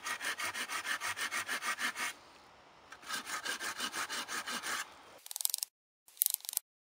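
Hand saw cutting a notch into a green gum-wood pole with quick, even strokes, about five a second. The sawing pauses briefly about two seconds in, then resumes. After an abrupt change near the end come short, separate rasping bursts with silence between them.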